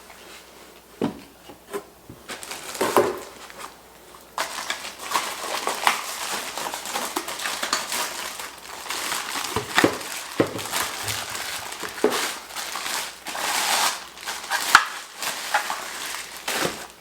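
Plastic packaging crinkling and rustling, with scattered clicks and knocks, as vacuum parts are pulled out and unwrapped. Only a few light clicks in the first four seconds, then dense crinkling for the rest.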